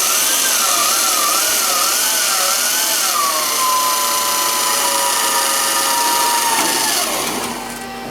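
A power tool run against bare metal for rust repair, with a strong hiss and a whine that wavers in pitch, then holds steady, then winds down about seven seconds in.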